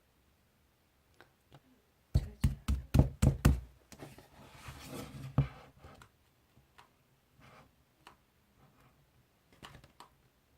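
A quick run of about seven hard knocks, followed by a softer rustling hiss and a few faint clicks.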